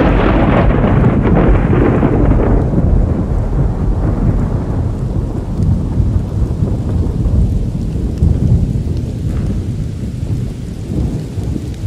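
A long roll of thunder: it breaks loud and bright at the start, then rumbles on deep and slowly fades.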